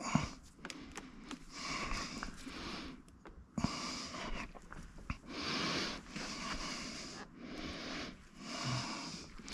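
A person breathing hard through the nose, a run of breaths about a second long each, while straining to lift a stuck part, with a few small knocks.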